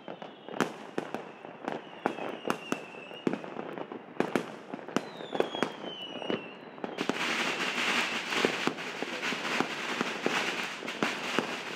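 Fireworks going off all around, with many sharp bangs and several whistles that fall in pitch. From about seven seconds in, a dense, continuous crackle joins the bangs.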